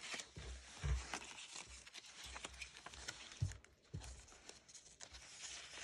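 Paper rustling and light handling as a printed art sheet is pressed into photo corners on an album page, with a few soft bumps of hands against the album.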